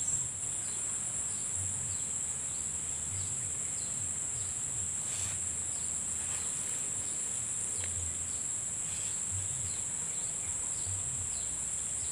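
A steady, high-pitched chorus of insects droning without a break, with faint short chirps above it and a few soft low thuds.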